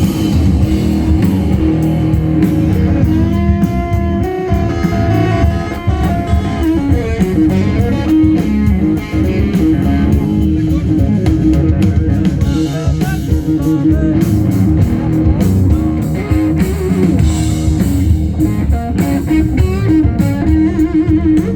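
Live rock-blues band playing loudly: lead guitar with sustained, bending notes over a drum kit.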